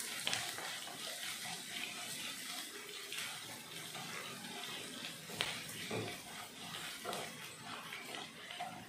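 Chopped carrots and green chillies sautéing in hot oil in a nonstick pan, a steady sizzle, with occasional scrapes of a wooden spatula stirring them.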